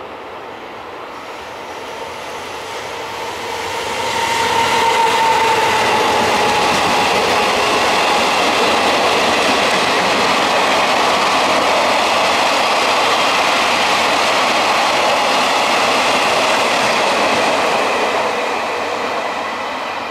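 JR Freight EF200 electric locomotive passing at speed with a tone that drops in pitch as it goes by, followed by a long string of two-axle Wamu 80000 boxcars running past on the rails. The sound builds over the first few seconds, holds steady and loud, and fades near the end as the last wagon leaves.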